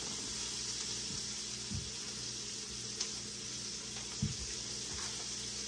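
Chopped onions and green pepper sautéing in hot oil in a pot: a steady sizzle, with a couple of soft low knocks.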